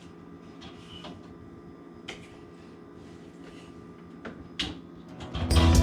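A few light clicks and knocks of drink bottles and cans being set on a Lazy Susan in a fridge, over a steady low hum. Background music starts near the end.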